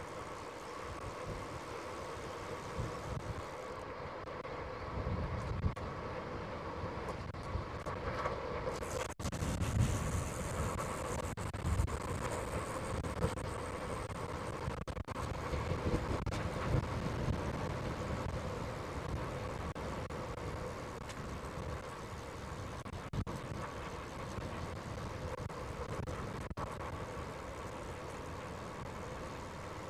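Wind rushing over the microphone and road noise during a bicycle ride, with low gusty rumbling that swells from about five seconds in and eases off after about seventeen seconds.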